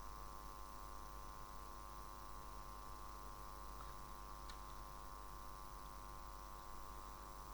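Steady low-level electrical hum with an even stack of tones, and one faint click about halfway through.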